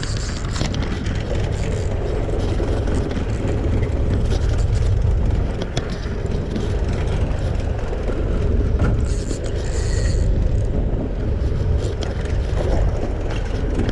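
Steady low rumble of wind buffeting the microphone on an open boat at sea, mixed with the sea around the hull. Under it, a spinning reel is cast and wound in, with a brief hiss about nine to ten seconds in.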